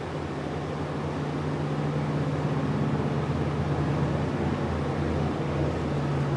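Steady low mechanical hum over an even hiss.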